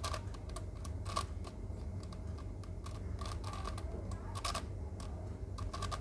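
Plastic clicking of a Sengso Crazy Megaminx being turned by hand through an algorithm, its faces snapping into place in irregular clicks two or three a second over a low steady hum.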